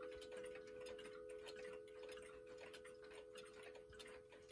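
Pendulum wall clocks ticking faintly, the beats of several clocks overlapping unevenly, with a faint steady hum under them.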